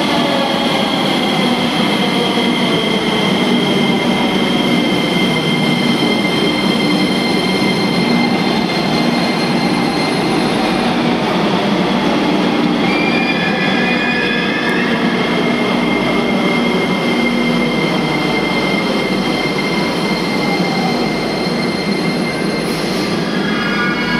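Metro trains running through an underground station: a steady rumble with a high whine and wheel squeal. A train's motor whine falls in pitch at the start and climbs about halfway through as a train speeds up.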